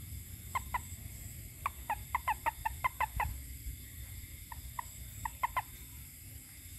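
Frog calling: a series of short, sharp notes, two near the start, a quick run of about ten in the middle, and a few more scattered near the end.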